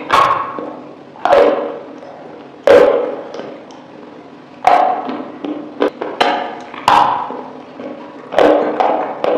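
Close-miked eating sounds: sharp, wet bites and chews of sauce-dipped food, about six loud ones roughly every one and a half to two seconds, with smaller mouth clicks between.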